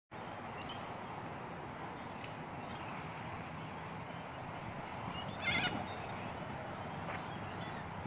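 Corellas calling: a few scattered harsh screeches, with one loud screech about five and a half seconds in, over a steady background hiss.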